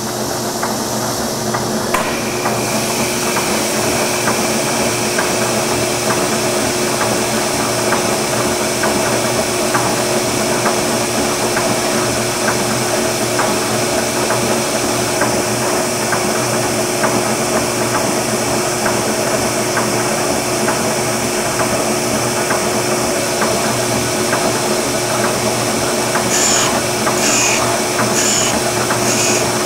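Oliver Model 600 drill grinder running an automatic infeed grinding cycle: its 1.5 hp spindle motor turns the 9-inch wheel with a steady hum and fast irregular clicking, and the sound brightens about two seconds in. Near the end, a high grinding sound pulses about one and a half times a second as the revolving drill point meets the wheel.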